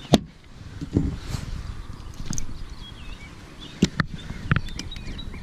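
A series of sharp knocks and thumps from handling on a bass boat, the loudest just after the start, over a low wind rumble on the microphone. A small bird chirps faintly in the second half.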